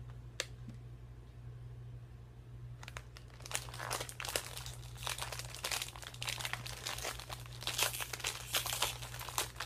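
Crinkly plastic wrapper of a packaged pão de mel honey cake crinkling and rustling as it is handled and opened. The crinkling starts about three seconds in and continues densely, after a single click near the start.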